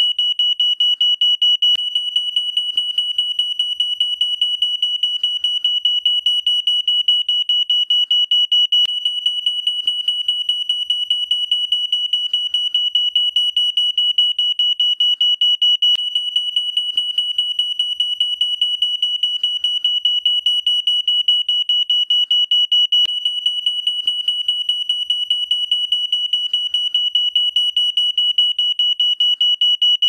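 Smoke alarm sounding: a shrill, high-pitched tone beeping in rapid pulses without a pause.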